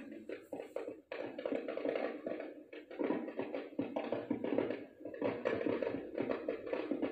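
Aerial fireworks bursting and crackling in rapid, irregular pops, heavier about three seconds in, heard through a television speaker with the highs cut off.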